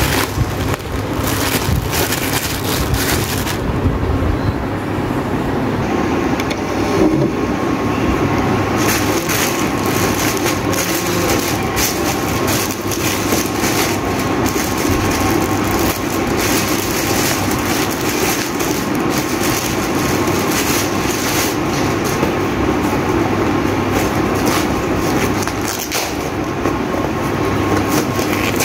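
Plastic packaging crinkling and crackling as parcels are handled and torn open, a dense run of small crackles and snaps.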